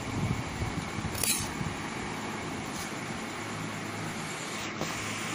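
A spoon spreading and levelling cooked rice in an aluminium pot: soft uneven rustle, with a sharp clink against the pot about a second in and a couple of fainter ones later, over a steady low background hum.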